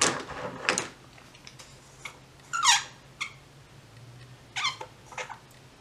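A few light clicks and taps, with a short squeak falling in pitch about two and a half seconds in and a few smaller squeaks and ticks near the end.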